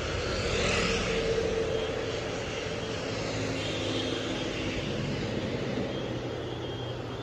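Road traffic going by: a motorcycle passes close about a second in, the loudest moment, followed by the steady hum of vehicles on the road.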